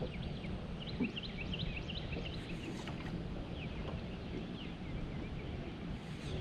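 Small birds chirping in rapid runs of short rising notes, busiest in the first half and thinning out after about three seconds, over a steady low rumble.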